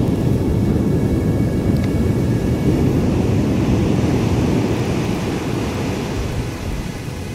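Surf breaking and foaming water washing up the beach around the feet: a loud, low rumbling rush that eases off a little toward the end.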